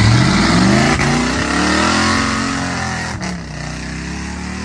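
Ford pickup mud truck's engine revving as it drives through mud and water, its pitch climbing, dropping and climbing again. It grows fainter as the truck pulls away.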